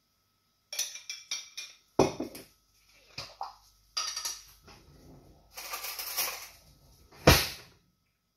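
Metal spoon clinking and scraping against a glass jar: a string of sharp clinks and short rattles, with one loud knock near the end.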